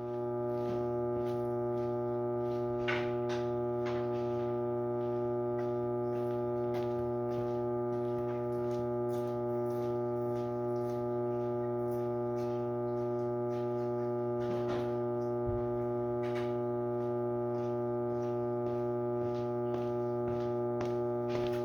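A steady hum made of several unchanging pitches, with faint scattered clicks and knocks over it.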